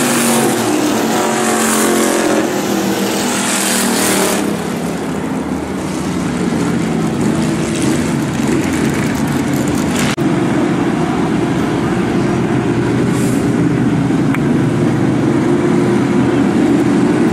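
A pack of pure stock dirt-track race cars running hard in a heat race. Engines swell and fade in quick whooshes as the cars pass close during the first few seconds, then settle into a steadier drone as the field runs through the far turn.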